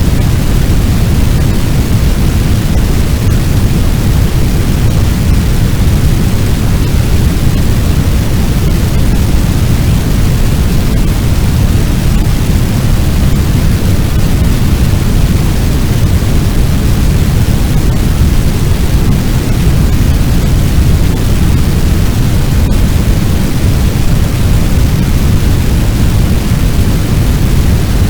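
Fire sound effect: a steady, loud, low rushing noise made to sound like a large blaze burning.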